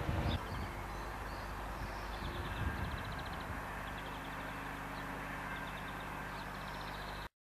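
Outdoor ambience with small birds singing fast trilling phrases over a steady low hum. A vehicle rumbles over the level crossing in the first half-second. The sound cuts off suddenly near the end.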